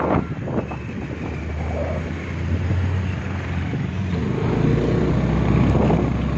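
Motor scooter riding along at road speed: its engine makes a steady low hum under broad road and air noise.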